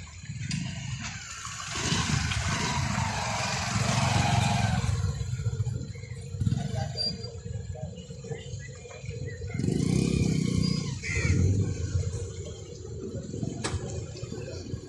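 Engines running, with low rumbling that swells and fades several times, a hissing stretch from about two to five seconds in, and a single click near the end.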